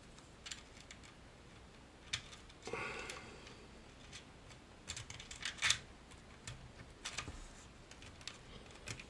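Faint, scattered clicks and taps of small plastic and metal RC-car parts being handled as tiny bushings are fitted onto the suspension links of a Traxxas 4-Tec chassis. A quick run of louder clicks comes about five to six seconds in.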